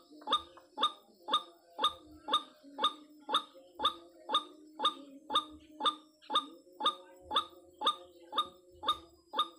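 White-breasted waterhen calling, a fast, even run of short, sharp calls at about two a second.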